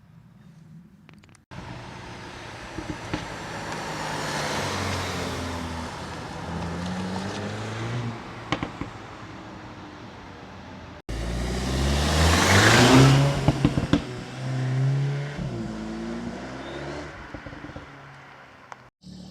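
Cupra Formentor VZ's 2.0 TSI turbocharged four-cylinder accelerating hard through the gears, its note climbing and dropping back at each upshift, with sharp exhaust pops. After an abrupt cut about eleven seconds in, a second, louder full-throttle pull with more crackles.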